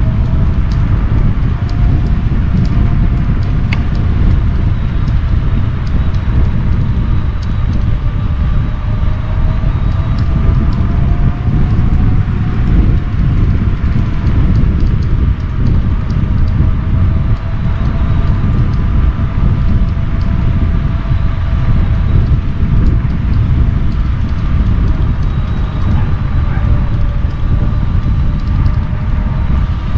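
Heavy wind noise on the microphone of a moving Kaabo Wolf King GT electric scooter, with the whine of its dual hub motors drifting gently up and down in pitch as the speed changes.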